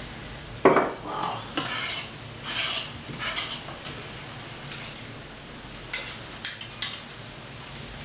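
A spoon scraping and tapping against a small bowl as soft cheese is spooned out onto pasta: a series of short clicks and scrapes, the sharpest about a second in, and a quick cluster of taps around six to seven seconds in.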